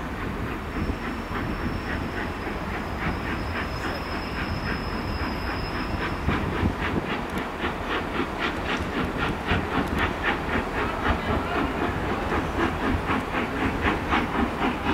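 LMS Royal Scot class three-cylinder 4-6-0 steam locomotive No. 46100 working slowly toward the listener, its exhaust chuffing in an even beat of about four a second and growing gradually louder over the rumble of the train on the rails. A faint thin high whine sounds through the first few seconds.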